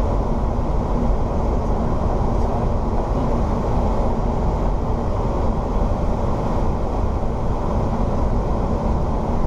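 Steady cockpit noise of a Boeing 737NG on final approach: air rushing over the nose and windscreen together with the engines, an even low rumble with a faint steady hum.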